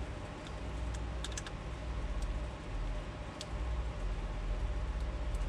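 Scattered small clicks and taps as fingers and a fingernail press tin-backed chrome vinyl wrap down onto a truck's grille bowtie emblem, over a steady low rumble.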